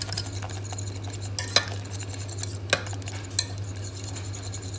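Metal wire whisk beating thick béchamel sauce in a stainless steel saucepan to break up its lumps: a continuous stirring scrape with a few sharp clinks as the whisk strikes the pan, over a low steady hum.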